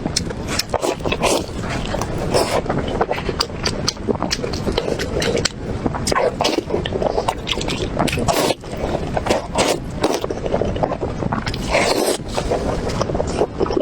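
Close-miked eating sounds of a person chewing braised pig's trotter: wet mouth smacks and sticky clicks coming irregularly, several per second.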